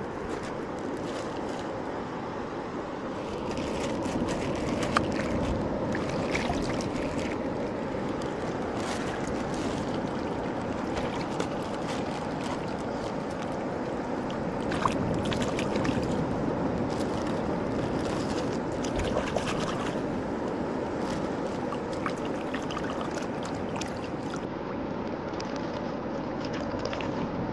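Seawater washing and trickling among shoreline rocks in a steady rush, with scattered small splashes and plastic crinkles as fruit is rinsed in seawater from a plastic zip bag.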